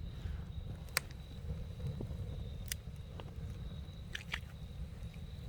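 Campfire burning with a steady low rumble, broken by a few sharp crackles and pops from the burning wood, three of them clear and well spaced.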